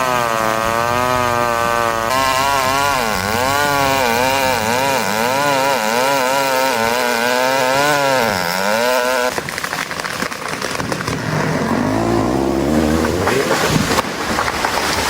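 Chainsaw running under load, its engine pitch rising and falling as it works through a cut. After about nine seconds it gives way to a rough, rushing noise.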